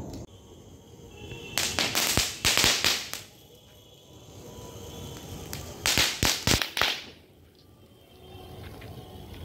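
Ground firework fountain spraying sparks, with two spells of loud crackling hiss. The first starts about one and a half seconds in and lasts about a second and a half; the second comes about six seconds in and lasts about a second.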